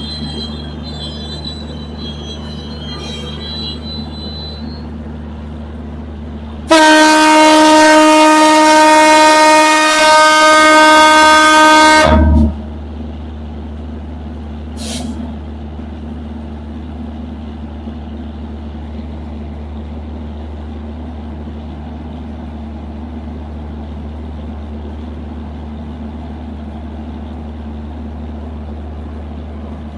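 Train locomotive's engine running with a steady low hum, and one long horn blast of about five and a half seconds, starting about seven seconds in.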